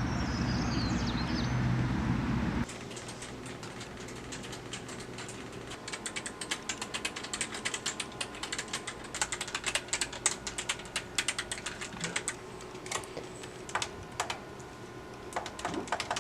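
A loud, even rumbling noise with a low hum cuts off abruptly about three seconds in. Keys clicking follows in quick, irregular runs, as in typing on a computer keyboard, thinning to a few scattered clicks near the end.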